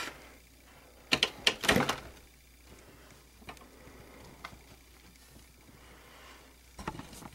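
A few sharp clicks and light knocks of small hard objects being handled, a quick cluster about a second in, faint ticks after, and a few more near the end.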